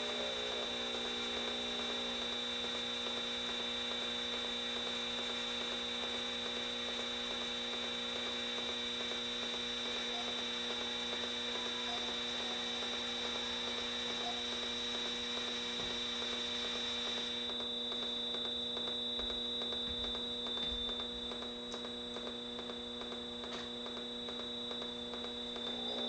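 Steady electric hum and buzz made of several held tones, played through small guitar amplifiers, with a faint fast pulse beneath it; the upper hiss cuts out about two-thirds of the way through.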